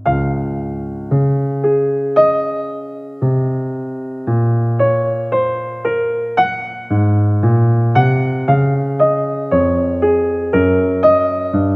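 Background piano music: a gentle melody of single struck notes over held low chords, coming in louder at the start.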